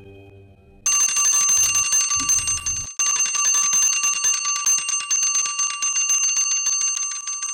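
Electric doorbell ringing on and on, a loud rapid metallic trill of hammer strikes that starts suddenly about a second in and breaks off for an instant near the three-second mark before ringing on.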